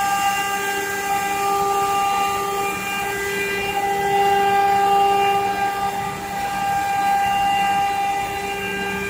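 CNC stone-carving machine's spindle running with a steady high whine over a hiss.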